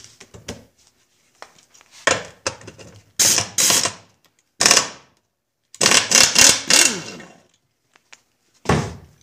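Impact wrench with a 5/8 socket run in about four short bursts, rattling out the lower motor-mount bolts on a Johnson 9.5 HP outboard's midsection; the longest burst comes about six seconds in, and there is a low thump near the end.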